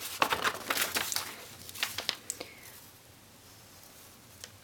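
Precreased origami paper crinkling and rustling as it is handled and turned over: a quick run of crackles over the first two seconds or so, then it settles, with one faint tick near the end.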